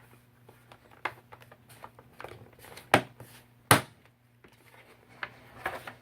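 The plastic top cover of a charging station being handled and pressed back into place over its cables: light clicks and rustles, with two loud sharp knocks a little under a second apart near the middle.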